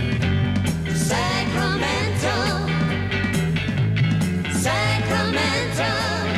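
Pop band playing live: drum kit, bass guitar and electric guitar with singing voices, two sung phrases with a wavering pitch coming in about a second in and again about four and a half seconds in.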